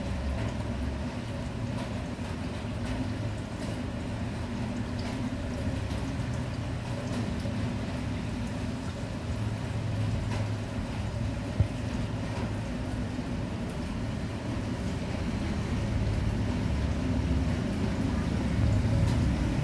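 Steady low rumble with a faint hiss above it, growing slightly louder near the end, with a single sharp click a little past the middle.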